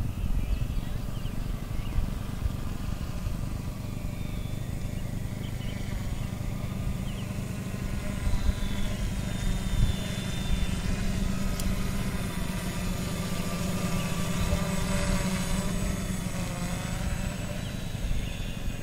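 Electric motors and propellers of a tricopter carrying a fixed-wing airfoil, flying: a thin motor whine that grows stronger and shifts in pitch as the craft passes closest, about halfway through, over a steady low rumble of wind on the microphone.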